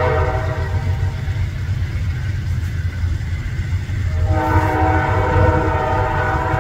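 Amtrak Downeaster train sounding its horn twice, several notes at once: a blast of about two seconds at the start, then a longer one from about four seconds in. A steady low rumble of the departing train runs underneath.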